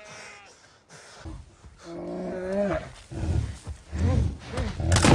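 Grizzly bear growling and roaring as it charges, the growls growing louder and deeper from about halfway through, with a sharp hit just before the end.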